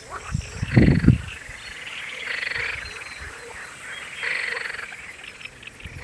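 Frogs croaking: two calls of about a second each, around two and four seconds in, with a loud low rumble about a second in.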